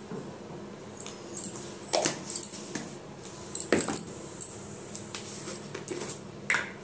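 Spice jars and a plastic spoon being handled: a handful of sharp knocks and clinks as jars and containers are picked up and set down, the loudest a little before four seconds in.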